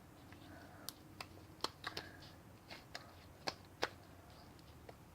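Butter slime being played with by hand, giving a faint, irregular string of small sharp clicks and pops, about nine over a few seconds.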